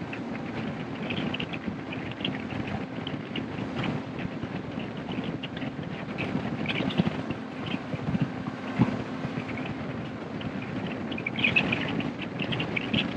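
Bass boat's outboard motor running with a steady hum while underway, with wind and water noise rushing past.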